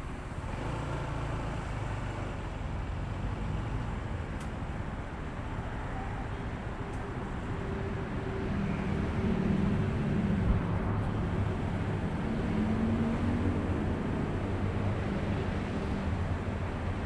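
Honda ADV160 scooter's single-cylinder engine running while riding, over wind and road noise. The engine note grows stronger about eight seconds in. A brief thump comes about ten seconds in.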